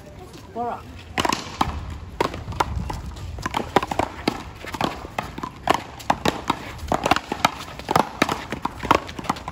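A paddleball rally: a rubber ball struck by solid paddles and bouncing off the concrete wall and court, with players' footsteps. It is heard as sharp knocks coming a few times a second, starting about a second in.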